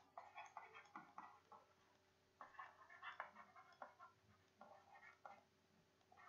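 Faint, quick taps and scratches of a stylus writing on a digital pen tablet, in two runs of short strokes with a brief pause about one and a half seconds in.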